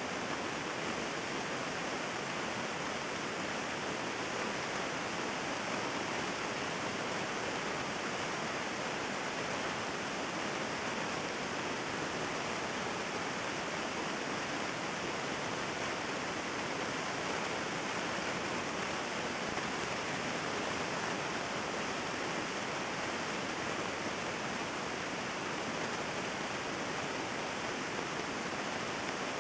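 Heavy thunderstorm rain falling steadily, an even hiss with no thunderclaps.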